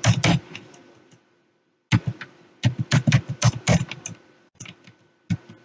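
Computer keyboard keys tapped in quick, irregular runs as a username and password are typed into a login box. There is a pause of about a second and a half near the start.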